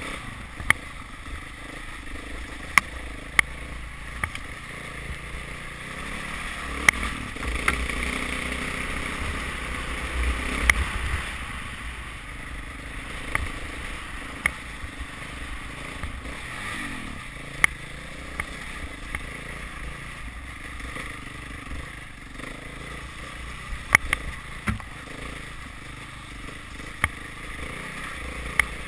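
KTM 690 Enduro's single-cylinder engine running while the bike rides a rough dirt trail, under a steady rush of noise, with a dozen or so sharp knocks scattered through, a little louder for a few seconds near the middle.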